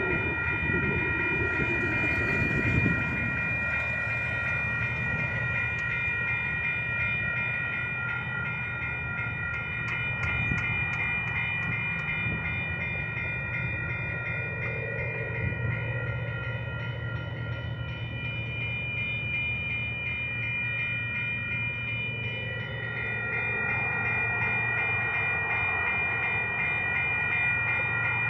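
Railroad grade-crossing warning bell ringing continuously, a steady metallic ringing held through the whole stretch, over a low steady rumble.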